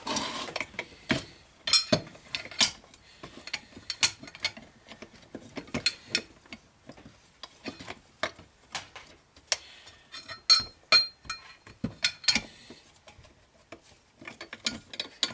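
Metal hand tools and chainsaw engine parts clicking and clinking irregularly as they are handled on a workbench, with the crankcase bolts out and the cases about to be split. The clinks come thicker and sharper about ten to twelve seconds in.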